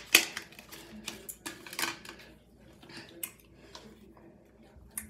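Plastic toothbrush packaging being opened and handled: a run of sharp crackles and clicks, densest in the first two seconds, then scattered fainter clicks.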